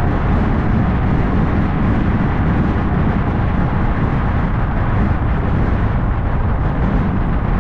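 A car driving at a steady speed: even, unbroken road and wind noise with a heavy low rumble, and no revving or gear changes.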